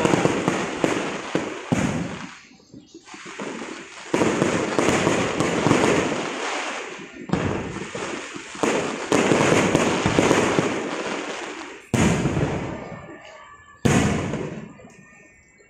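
Aerial firework shells bursting in a display: a sharp bang every few seconds, each followed by crackling that fades away.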